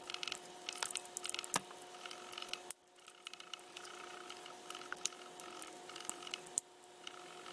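Small precision screwdriver working a tiny screw in a camera's plastic lens and image-sensor module: faint scattered clicks and light scrapes of the metal tip and fingers on the parts, with a few sharper ticks. A faint steady tone sits underneath.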